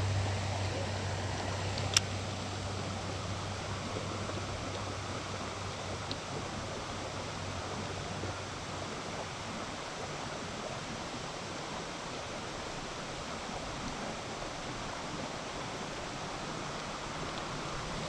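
Creek water running steadily over shallow rocks, an even rushing. A single sharp click about two seconds in, and a low hum that fades out about halfway through.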